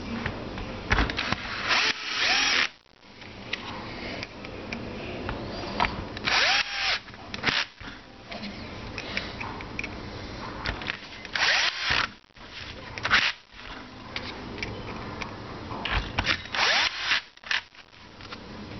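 Bosch cordless drill/driver driving self-tapping screws into a jigsaw's plastic housing in several short bursts, with handling of the tool and screws between them.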